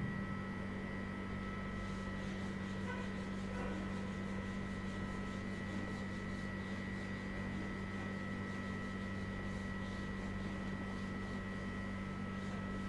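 Steady low electrical hum with faint thin high tones above it. No speech or distinct events.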